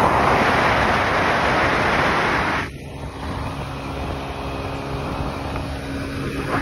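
A 125cc scooter running at speed, with a heavy rush of wind on the microphone that cuts off sharply about two and a half seconds in. After that, the scooter's steady engine hum and road noise carry on at a lower level.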